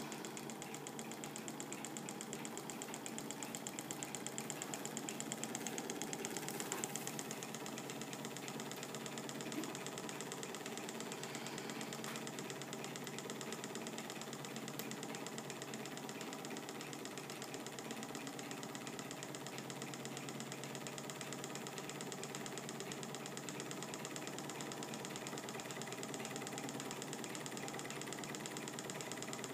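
Small Manfred-design Stirling engine built from bar stock, running steadily on heat from a methylated-spirit burner: a rapid, even mechanical clatter.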